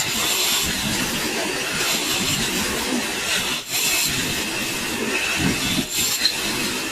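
A power tool working wood, running steadily with a faint high whine, with two brief breaks in the sound.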